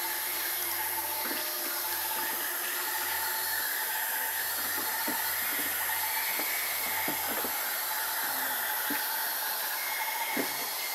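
Steady outdoor background hiss with faint steady high tones and a few soft, brief clicks and rustles.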